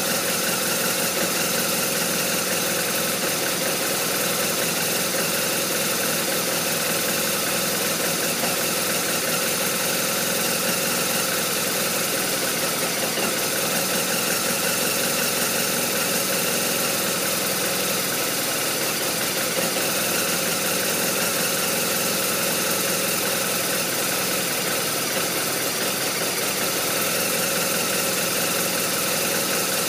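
BMW R1200RT motorcycle's boxer-twin engine idling roughly at a steady level.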